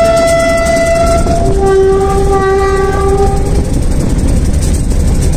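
Diesel locomotive's air horn sounding from the cab: a higher note that ends about a second and a half in, then a lower note held for about two seconds, over the steady rumble of the moving locomotive.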